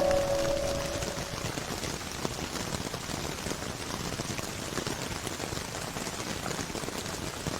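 Rain sound effect: a steady patter of rain, heard on its own as the last held note of slowed, reverb-drenched ambient music fades out in the first second.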